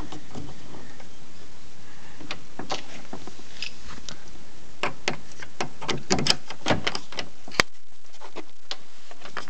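Irregular clicks and light knocks of a T20 socket driver and hard plastic door-handle trim as the handle is screwed onto a truck's interior door panel, coming more often in the second half, with one sharp click near the end.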